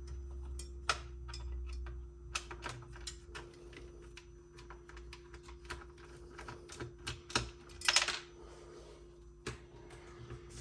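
Irregular clicks and taps of a screwdriver and loose screws as the four corner screws holding a Macintosh Plus's CRT are taken out, with a louder scraping clatter about eight seconds in as the tube is handled.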